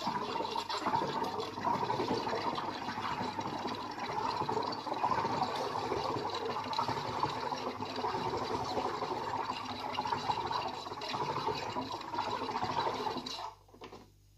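SodaStream carbonator injecting CO2 into a bottle of plain water: a steady rush of gas and bubbling water while the button is held down, cutting off suddenly a second before the end.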